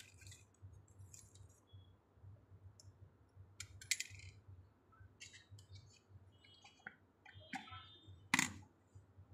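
Clicks and clinks of a stroller's plastic and metal frame parts being handled and fitted together: a scattering of short sharp taps, with a brief metallic ring about seven and a half seconds in and the loudest knock near the end.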